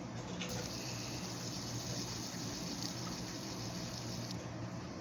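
Steady background hiss with a faint low hum. There are no distinct clicks or pops.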